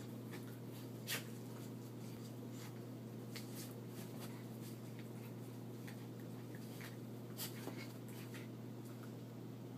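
Small dogs play-wrestling on carpet: faint scuffling and scratching of paws and bodies, broken by short sharp clicks, the loudest about a second in and two more about seven and a half seconds in.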